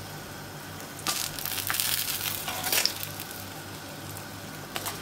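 Hot sunflower-type cooking oil sizzling in a frying pan as fried çiğ börek are lifted out with tongs. The sizzle swells and crackles louder from about a second in until about three seconds in, then settles back to a steady hiss.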